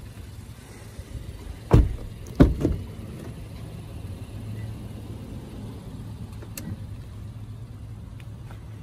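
Three heavy thumps close together about two seconds in, over a low steady hum.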